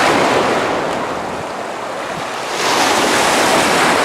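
Ocean surf: waves breaking and washing up the shore, swelling twice, with some wind on the microphone.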